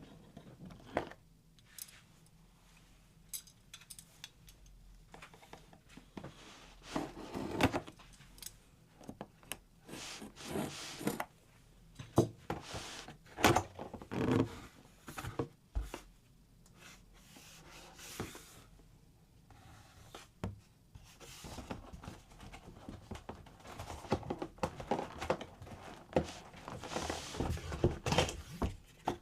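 Irregular clicks and thunks with short scraping, rustling stretches, the sound of a mechanical keyboard being handled, with quiet gaps between.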